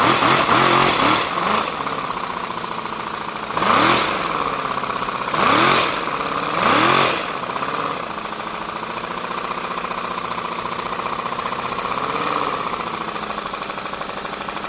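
3D-printed V4 air-powered engine running on compressed air, a rapid, steady chuffing from its dual exhausts with empty mufflers. Its speed briefly surges up and drops back three times in the first half, and once more near the end.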